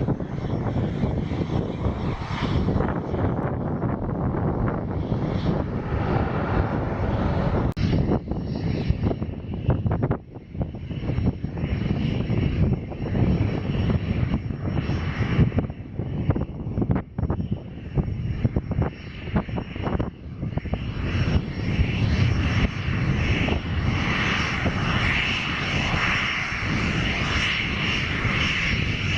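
Turboprop airliner engines running, with a steady whine that grows stronger over the last several seconds. Wind gusts buffet the microphone with an uneven low rumble.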